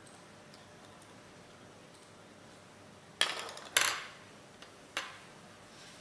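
Small hard clicks and clinks of a Holden Commodore key fob's circuit board and plastic parts being handled and set down on a wooden table. There are three sharp clicks, about three, three and a half and five seconds in, and the first two trail off in a brief rattle.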